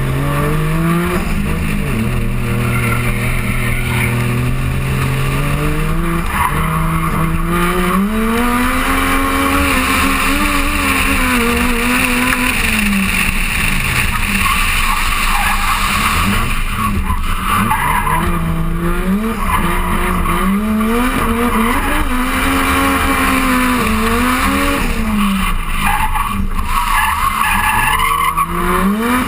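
Drift car's engine revving up and down again and again under the throttle while the car slides sideways, over a continuous squeal and hiss of skidding tyres. The engine holds a steady low note for a few seconds early on, then climbs and falls several times.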